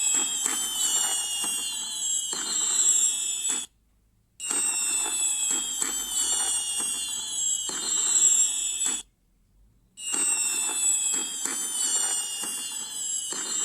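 Fireworks whistling and crackling: shrill whistles fall slowly in pitch over a scatter of crackling pops. It plays three times, each run a few seconds long, with short silences between.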